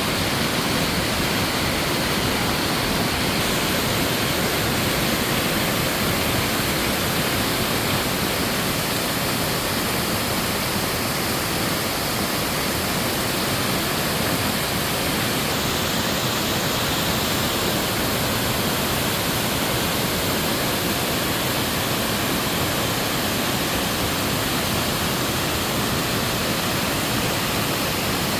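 Mountain waterfall pouring steadily into its pool: a dense, even rush of falling water with no change.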